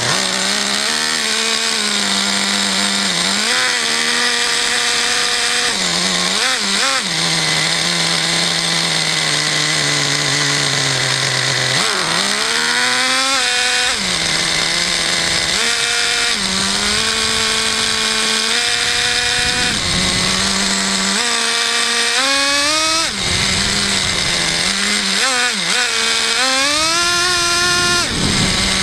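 Traxxas Jato 3.3 nitro RC car's small two-stroke glow engine running loud and buzzy, its pitch rising and falling as the throttle is worked, with several long climbing revs.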